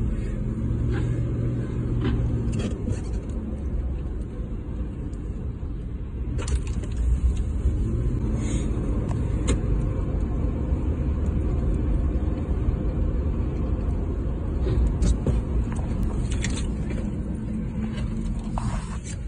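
Car running along the road, heard from inside the cabin: a steady low rumble of engine and road noise, with a few light clicks scattered through.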